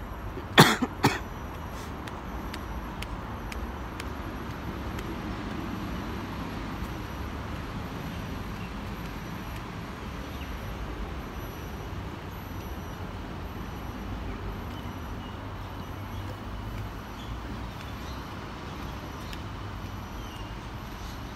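Steady outdoor street ambience with a low rumble of distant traffic. Two short, sharp loud bursts come about half a second apart near the start.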